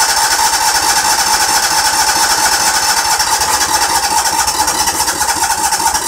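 Electric starter cranking a petrol engine steadily, choke on and throttle open, without the engine catching; the owner thinks it is not getting fuel.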